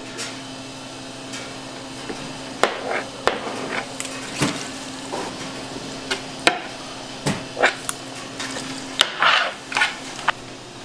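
Irregular sharp knocks and clicks of a metal scraper and utensils on a plastic cutting board as fish paste is worked, over a steady machine hum. A brief sizzle of frying oil comes near the end.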